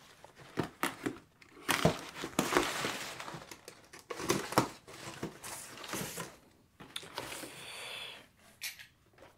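Packaging rustling and crinkling as hands dig through a box of merchandise, with irregular scrapes and light knocks as boxed items are handled and lifted out.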